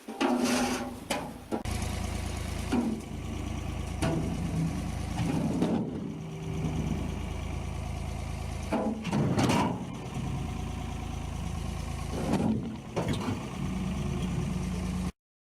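Ford 4500 backhoe tractor's engine idling steadily, with several short louder swells. It cuts off abruptly near the end.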